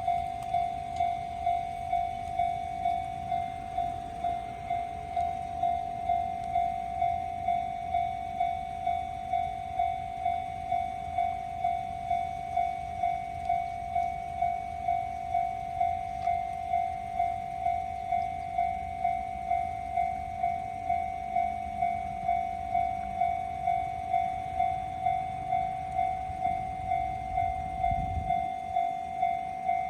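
Railway level-crossing warning alarm ringing, an even electronic ding repeating about 1.4 times a second while the crossing is closed for an approaching train. There is a brief low thud near the end.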